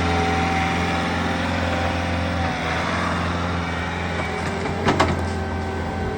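Bobcat skid steer engine running steadily, its note dropping about two and a half seconds in, with sharp cracks about five seconds in.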